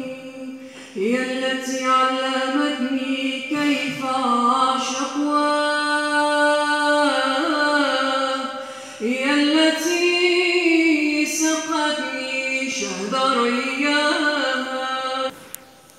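A woman singing long, ornamented Arabic vocal phrases with held, bending notes. The phrase fades out near the end.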